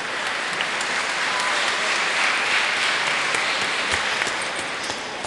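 Audience applauding, building to a peak about two seconds in and then dying away near the end.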